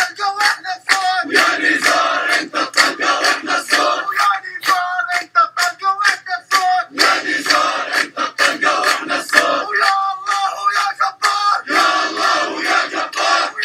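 A protest crowd chanting Arabic slogans in time with steady rhythmic clapping. A man's voice through a megaphone leads the chant, and the crowd answers in louder, fuller bursts.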